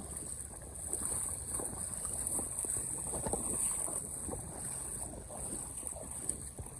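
Wind buffeting the microphone, with irregular rumbling gusts and water lapping against a boat, over a steady high hiss.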